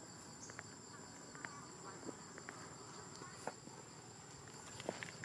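Outdoor insects chirping and buzzing in a steady high drone, with a few faint, brief clicks scattered through.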